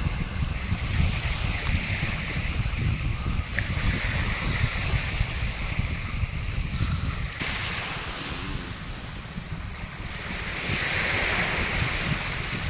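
Small waves lapping and washing over a sandy shore, with wind rumbling on the microphone through the first part. The rumble drops away abruptly about seven seconds in, and near the end a wave washes in louder, close by.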